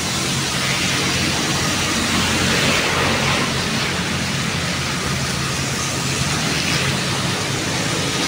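Steady rain falling, with a low hum of road traffic underneath.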